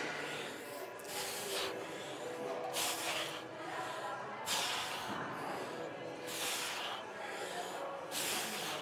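A lifter breathing out hard on each rep of a lat pulldown: short hissing exhales, roughly one a second.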